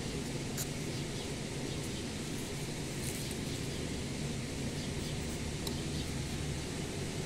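Steady background hum, with a few faint short scratches of a knife blade scraping bark off a mango branch.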